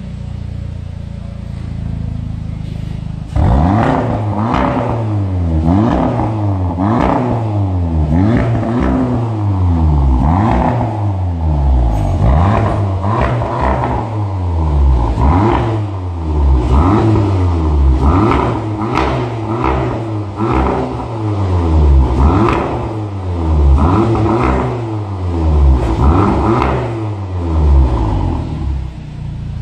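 VW Golf Mk7 R's turbocharged 2.0-litre four-cylinder through an Armytrix valvetronic exhaust, idling for about three seconds and then revved repeatedly, the pitch rising and falling roughly once a second, with sharp crackles in between.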